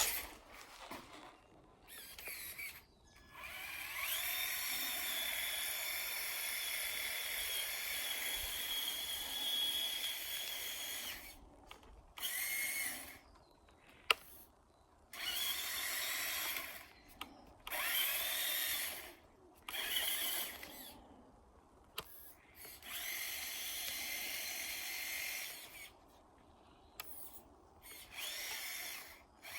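A Traxxas TRX-4 RC crawler's electric drive motor and gearbox whining in repeated bursts as it is driven. There is one long run of several seconds, then shorter stop-start spurts, each rising in pitch as the throttle comes on.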